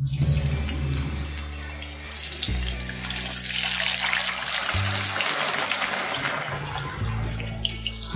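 Hot oil in a steel kadhai sizzling as cubes of freshly washed suran (elephant foot yam) are tipped in; the sizzle swells about three seconds in and keeps bubbling, over background music.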